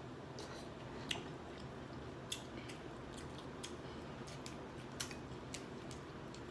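Snow crab leg shells cracking and snapping as they are broken and picked apart by hand: a scatter of sharp clicks about a second apart, along with quieter wet sounds of eating.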